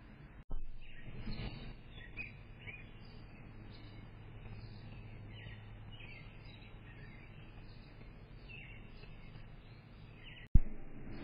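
Birds chirping, many short calls one after another, picked up by a security camera's microphone over a steady low hum. A sharp click near the end.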